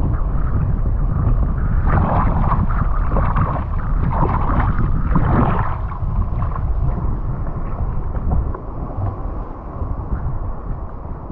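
Wind rumbling on an action camera's microphone over river water sloshing and splashing around a floating tube.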